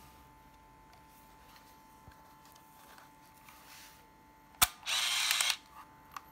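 Minolta F10BF compact film camera firing: a sharp shutter click, then its built-in motor whirring for under a second as it winds the film on to the next frame. A couple of small clicks follow.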